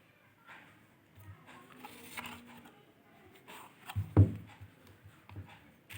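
Light handling noises of a box and small product packages: soft taps and rustles, with one louder thump about four seconds in as something is set down or bumped.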